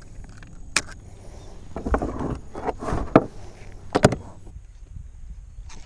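Handling noises from unhooking a caught speckled trout aboard a plastic fishing kayak: a few sharp clicks and knocks, with a stretch of scuffing and rustling in the middle.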